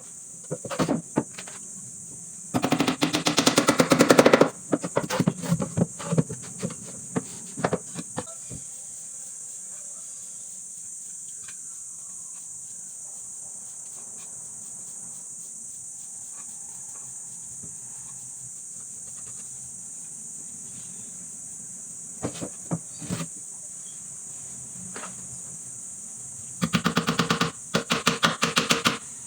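Cordless impact driver hammering screws in, two loud bursts of rapid knocks, one a few seconds in and one near the end, with a few single knocks in between. A steady high insect drone runs behind.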